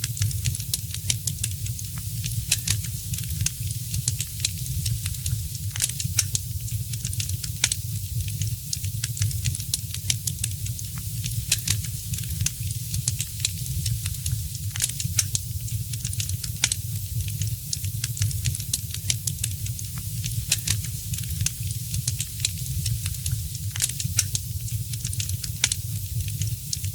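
Fire in a fireplace crackling, with frequent small irregular pops and snaps over a steady low rumble and a soft hiss.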